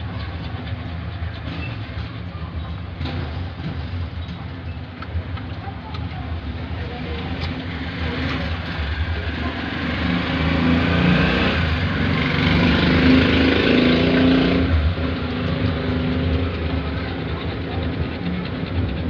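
A steady low engine hum, with a motor vehicle passing that grows louder from about eight seconds in and fades by about fifteen seconds.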